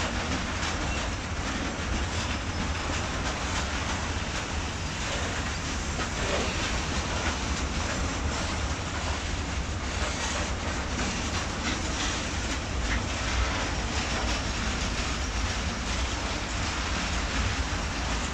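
Freight train of covered hopper grain wagons rolling past: a steady rumble of steel wheels on the rails, with clicks from the wheels passing over the track.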